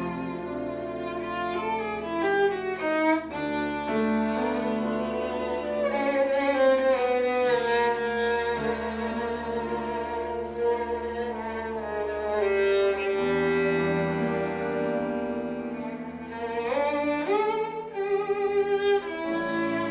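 A chamber ensemble plays live, a violin carrying the melody over a cello, with quick upward slides near the end.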